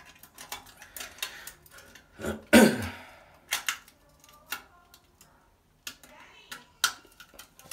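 Metal snake cable clicking, knocking and scraping against a porcelain toilet bowl and drain as it is worked by hand to free a stuck object. The clicks are irregular, with one louder scrape about two and a half seconds in that falls in pitch.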